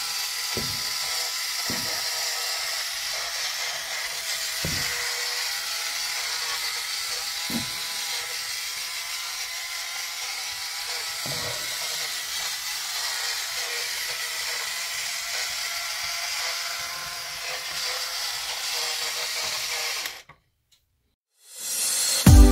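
Battery-powered bump-and-go toy vintage car running: its small electric motor and plastic gears whir steadily, with a few low knocks as it bumps and turns. The whirring cuts off about twenty seconds in.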